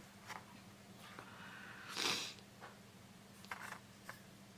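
Quiet handling of tarot cards: a soft sliding swell about two seconds in and a few faint taps, over a low steady hum.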